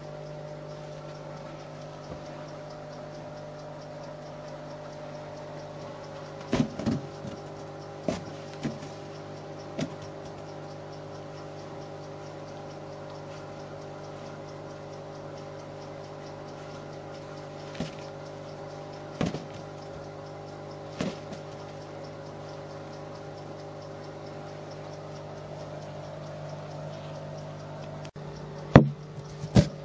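Rubber balloon being batted and knocked about by a kitten: about ten scattered light thumps and taps, several close together around seven to ten seconds in and the loudest two near the end, over a steady low hum.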